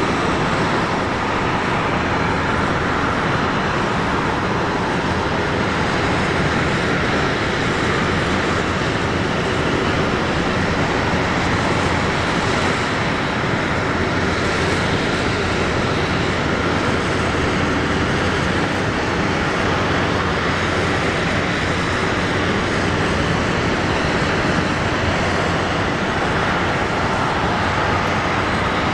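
Steady aircraft noise on an airport apron: an even rush of turbine-type noise with a low hum underneath, holding unchanged throughout.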